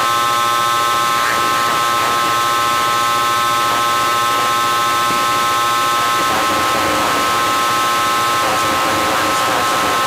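Live electronic noise drone: a dense, steady hiss with several held tones layered inside it, growing a little busier in texture over the last few seconds.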